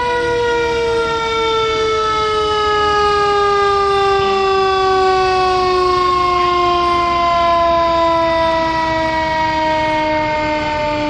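A passing fire engine's siren, wound up just before and now winding down: one long wail that slowly falls in pitch throughout, the steady spin-down of a mechanical siren.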